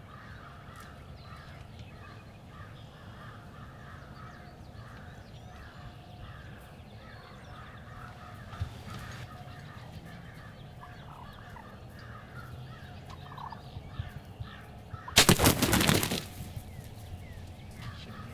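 Wild turkeys calling softly, a steady run of short calls, with one loud burst lasting about a second near the end.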